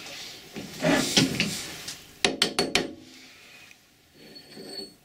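Metal-on-metal scraping and clanking as a lathe chuck is worked loose from a Colchester lathe's spindle nose with a T-handle key. About two and a half seconds in there is a quick run of four sharp metallic clicks, and a short high ring near the end.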